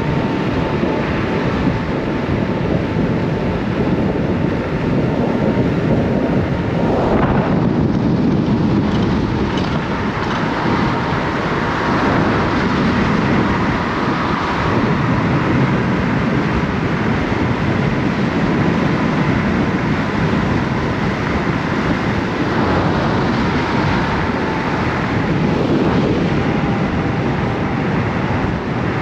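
Kaabo Wolf King GT electric scooter ridden at speed: steady wind rush over the microphone and tyre noise, with a thin whine from the hub motors that drifts slightly in pitch.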